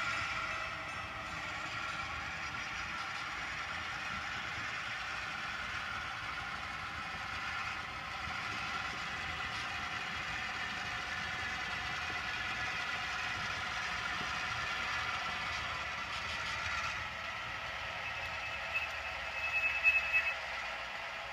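Two HO-scale diesel locomotives (an Athearn GP15-1 and an Atlas MP15) run slowly on SoundTraxx Tsunami2 sound decoders: simulated diesel engine sound from their small onboard speakers, with the clatter of the models' wheels on the track. Near the end comes a brief high squeal and a few sharp clanks as they couple onto a covered hopper.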